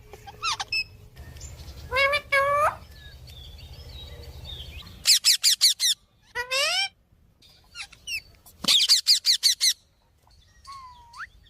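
Parrots calling back and forth with short, shrill screeches, some in quick runs of four or five, and a single rising whistle near the end.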